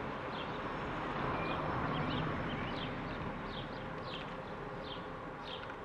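Light road traffic: cars' tyres and engines at low speed, swelling briefly about two seconds in, with birds chirping short falling notes about twice a second.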